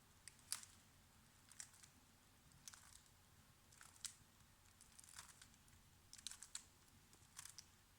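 Faint plastic clicks of a 3x3 Rubik's cube's layers being turned, about one turn a second, while a second-layer edge-insertion algorithm is performed.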